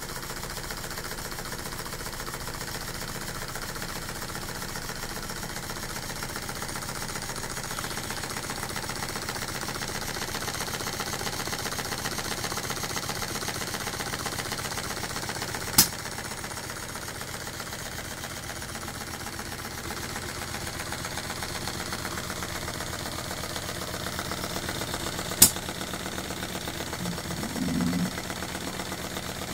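O B Bolton triple-expansion steam engine running on a steam test, a steady mechanical sound with a fast, even beat. Two sharp clicks stand out, one about halfway through and one near the end, with a brief low sound just after the second.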